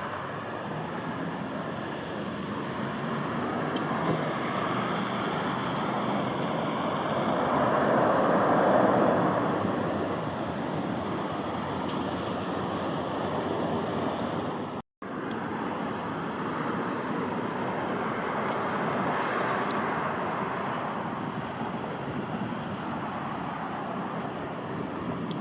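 Steady rushing noise of a jet airliner's engines some way off, mixed with wind on the microphone. It swells to a peak about eight seconds in, breaks off for an instant about fifteen seconds in, then swells more gently again near twenty seconds.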